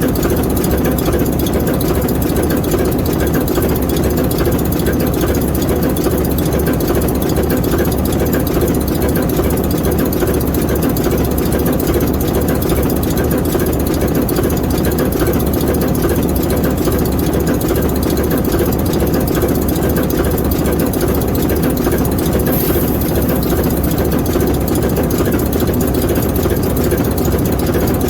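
ALCO S4 diesel locomotive's turbocharged six-cylinder 539T prime mover running steadily. The deep, even engine sound holds the same speed throughout.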